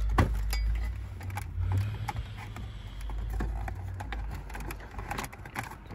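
Plastic console trim around a Mazda 3's gear shifter being pried and pulled loose by hand: a sharp knock just after the start, then scattered clicks and knocks. A low rumble of handling noise on the phone's microphone runs under the first four seconds or so.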